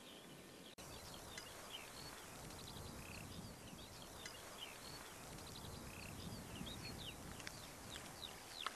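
Faint open-air ambience of many small birds chirping and trilling in short, scattered calls over a low, even background hiss, with a split-second dropout under a second in.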